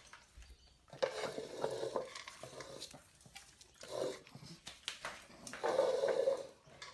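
Pug puppy nosing and pushing a pet bowl across a tile floor, the bowl scraping and knocking in three bursts: about a second in, around four seconds, and near the end.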